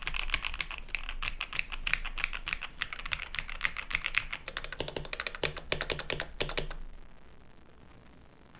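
Fast, dense typing on two mechanical keyboards at once, both with linear switches, the keystrokes overlapping into a continuous clatter of clacks. The typing stops about seven seconds in, leaving only a faint fading hiss.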